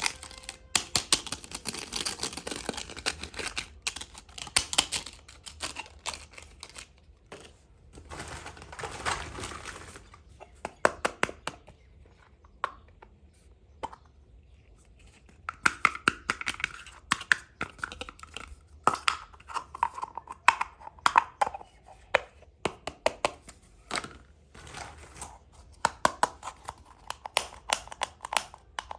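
Handling of plastic toy packaging and small plastic toy pieces: crinkling and tearing for the first ten seconds or so, then a run of sharp clicks and taps with short scrapes as the pieces are handled and fitted.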